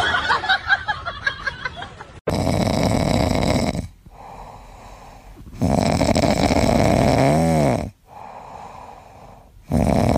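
A sleeping Shiba Inu snoring, starting about two seconds in: three long, loud snores a few seconds apart, with quieter breaths between.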